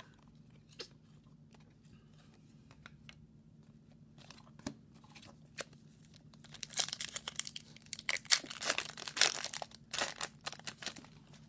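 A foil trading-card pack being torn open, with a dense crackling of tearing and crinkling wrapper from about six and a half seconds in until near the end. Before that there are only faint ticks of cards being handled.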